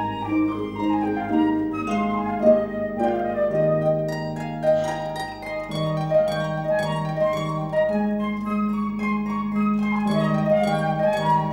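Flute and pedal harp playing a classical Allegro together, the harp plucking quick running figures under the flute's melody.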